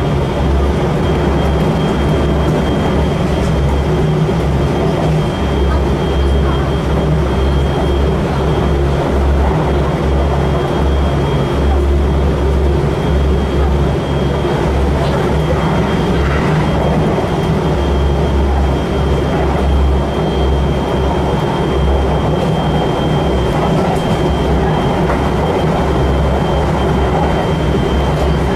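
Steady running noise inside a Kintetsu Nagoya Line express train car at speed: a continuous low rumble from the wheels and running gear, with a thin steady high tone over it.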